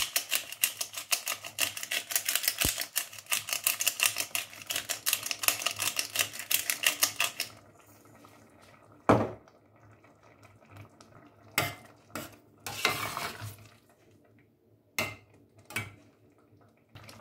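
Pepper grinder being turned over a saucepan: a fast run of crunching clicks lasting about seven seconds. After it stops, there is a sharp knock, a few metal spoon knocks and a brief scrape of a spoon stirring thick purée in a stainless steel pot.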